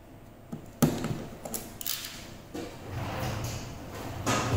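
A plastic cable tie sealing a hard plastic tool case snapping as a utility knife cuts through it about a second in, followed by scattered clicks and scraping as the plastic case is handled.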